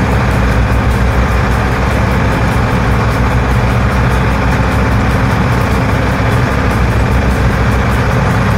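Boat engine running steadily under way, a constant low drone, with a steady rush of wind and water over it.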